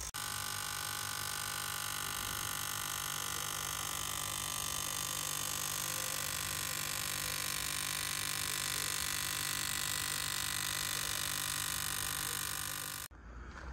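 Steady electrical hum and hiss that does not change, starting and stopping abruptly.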